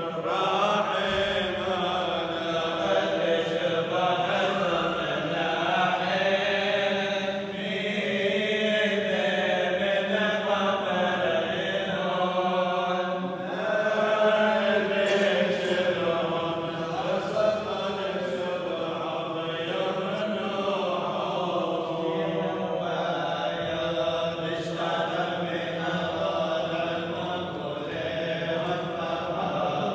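A group of men's voices chanting a liturgical funeral hymn together in unison, the melody moving slowly over a steady held low note.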